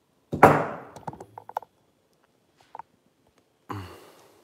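A thunk as a silver bar in a plastic sleeve is set down on the wooden table, followed by several light clicks and taps from handling the metal pieces. Another short handling sound comes near the end.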